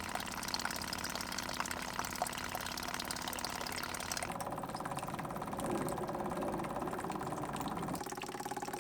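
An engine running steadily at idle, with abrupt changes in its sound about four seconds in and again near the end.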